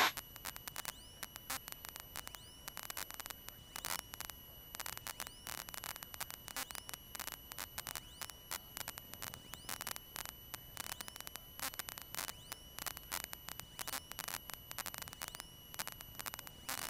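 Faint electrical static on a cockpit intercom audio line: irregular crackling clicks over a hiss and a steady high-pitched whine, with no engine sound coming through.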